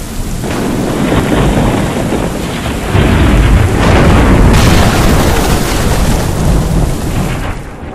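Thunderstorm sound effect: heavy rain hiss with rolling thunder, swelling in at the start and rumbling loudest in the middle before easing off near the end.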